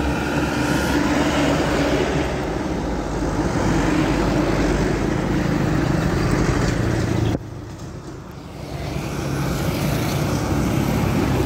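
A bus driving past close by, a steady engine and road noise. The noise cuts off abruptly about seven seconds in, then builds again as another vehicle approaches.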